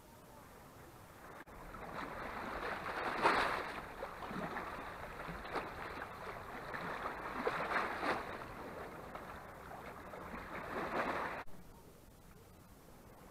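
Small sea waves lapping and washing over a rocky, pebbly shoreline, swelling and ebbing every few seconds, until the sound cuts off suddenly near the end.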